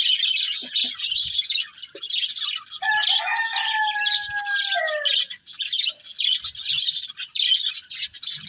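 Budgerigars chirping and chattering in a rapid, continuous twitter. About three seconds in, a longer, lower call lasting about two seconds rises over the chatter and falls in pitch at its end.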